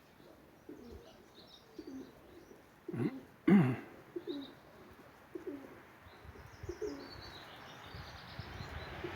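Domestic pigeons cooing, short low coos repeating every second or so, the loudest about a third of the way in, with faint high chirps of small birds.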